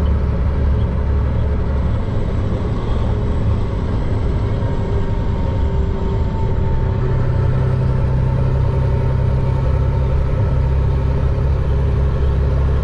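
Diesel engine of a Chenglong concrete mixer truck running steadily, heard from inside the cab.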